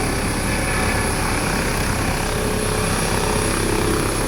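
Helicopter running steadily on its turbine engine and rotor, with a thin high whine over the rotor noise.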